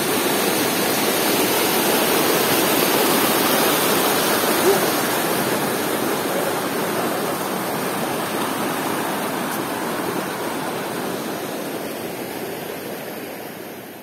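Periyar river rapids: water rushing steadily over rock, fading out gradually near the end.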